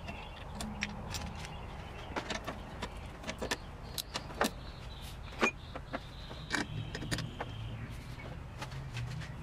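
Scattered sharp clicks and light knocks of hands working with tools and fittings, over a steady low hum.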